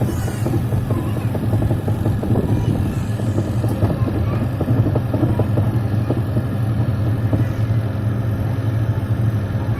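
Haier washing machine on its spin cycle: the motor and drum running steadily with a low, even hum.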